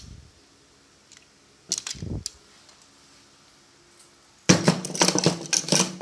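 Metal hand tools clinking and clattering as they are handled and set down. A few knocks come about two seconds in, then a dense run of clatter fills the last second and a half.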